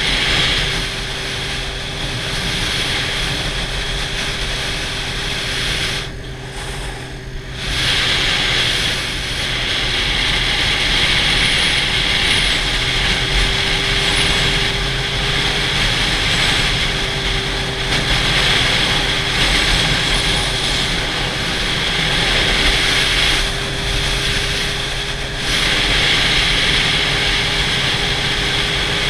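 Sport motorcycle engine running at a steady cruise under a heavy rush of wind on the microphone; the engine note holds steady and edges up slightly near the end. The wind rush drops away briefly about six seconds in and again near twenty-four seconds.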